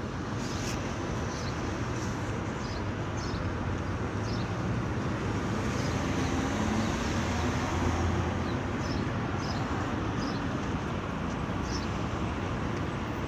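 Steady background noise with faint short ticks scattered through it and a slight swell about halfway through.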